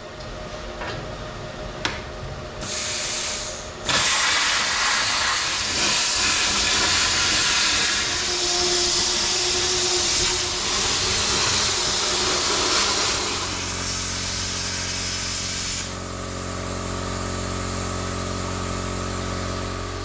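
Thermal Dynamics plasma cutter cutting through the steel bottom plate of a skid steer bucket. After a short hiss about three seconds in, the arc runs as a loud, steady hiss for about twelve seconds and stops near the end, leaving a steady machine hum.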